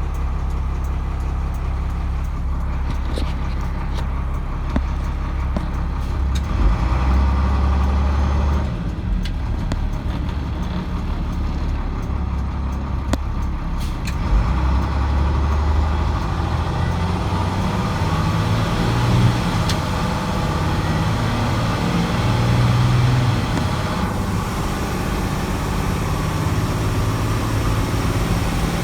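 International DT466 inline-six turbo diesel in a 1995 school bus running, its low note swelling and easing several times. The turbocharger is worn out, "pretty much gone", though the engine still runs.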